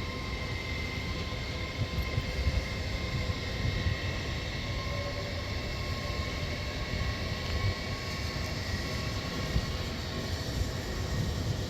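Train running, a steady high whine over a low rumble.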